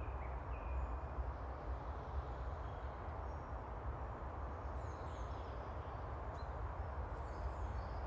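Forest ambience: a steady low rumble and hiss, with a few faint, short bird chirps scattered over it.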